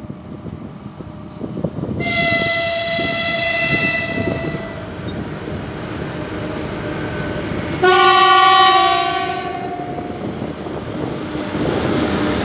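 A 3ES5K "Ermak" three-section electric freight locomotive sounds two horn blasts as it approaches. The first, about two seconds in, is higher-pitched and lasts some two and a half seconds. The second, at about eight seconds, is lower, louder and lasts about a second and a half. The train's rumble runs under both and grows as it draws near.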